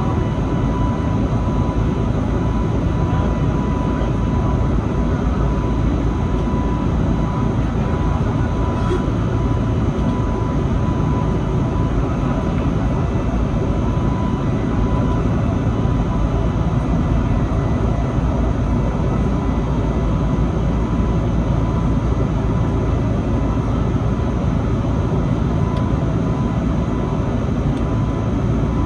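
Airbus A320neo in flight, heard inside the cabin from a seat over the wing: a steady, unchanging rumble of engine and airflow, with a thin steady tone above it.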